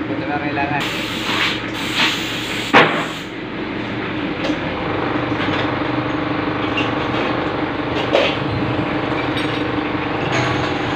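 Steady machine drone at one pitch with a hissing burst or two in the first few seconds, a sharp metal clank just under three seconds in and a lighter knock about eight seconds in.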